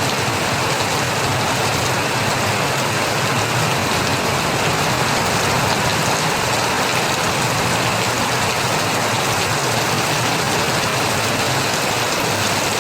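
Steady rain falling, an even patter of drops with no change throughout.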